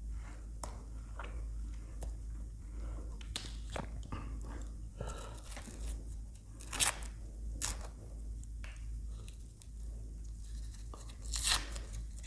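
Close-miked eating of ice cream: crunchy bites and chewing, with scattered small crackles and two sharper crunches, one about seven seconds in and one near the end.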